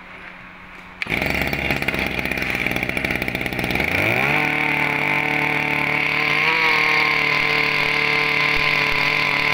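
Shindaiwa 2004 two-stroke brush cutter engine pull-started, catching about a second in. It runs roughly at first, then revs up around four seconds in and holds a steady high speed. The mechanic judges that it is getting a little too much air.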